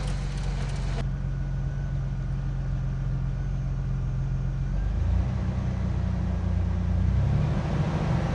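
Pickup truck engine running steadily, its note shifting about five seconds in and again near seven seconds.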